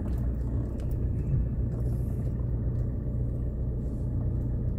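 Car's engine and tyre noise heard from inside the cabin: a steady low rumble.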